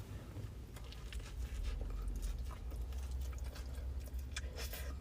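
A person chewing food close to the microphone, with many small irregular mouth clicks.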